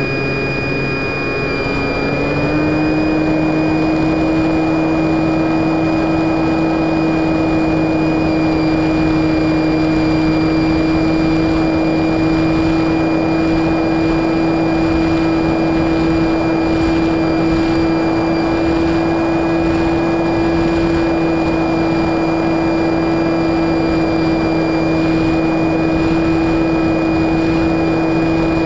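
Electric motor and propeller of an FPV Raptor model plane running with a steady whine, heard from the onboard camera over a rush of wind. The pitch steps up about two seconds in as the throttle opens a little, then holds.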